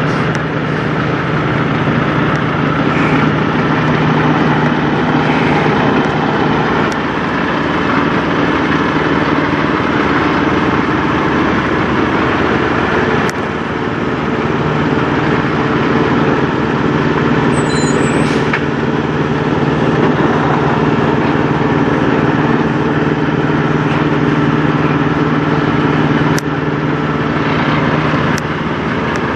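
Diesel engines of Peterbilt semi trucks running steadily at low revs, close by, with a few short sharp clicks and a brief high squeak about two-thirds of the way through.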